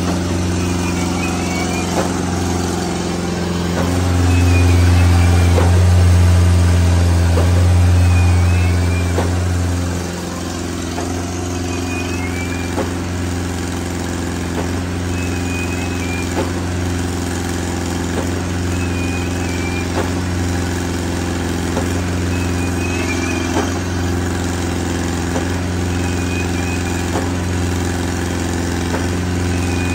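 Schwing SP305 trailer concrete pump running during a hydraulic pressure test. Its engine hums steadily, then loads up and gets louder from about four seconds in until about ten seconds in before settling back. A faint chirp repeats every three to four seconds over the hum, with light knocks every second or two.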